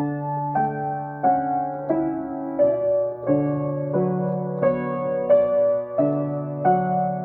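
Solo acoustic piano improvisation: chords struck at an even, unhurried pace, roughly three every two seconds, each one ringing on into the next.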